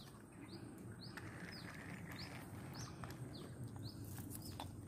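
A bird giving a short, high chirp over and over, about every two-thirds of a second, faint.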